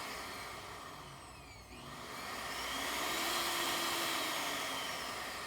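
Vitamix 7500 blender motor whirring with its housing open. It slows, then picks up speed again about two seconds in, and eases off near the end. The motor runs only while the control board is twisted or pressed, a sign of an intermittent connection on the board.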